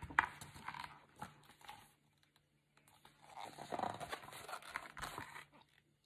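Pages of a hardcover picture book rustling and the book being handled close to the microphone as a page is turned, a few soft clicks and then a longer rustle.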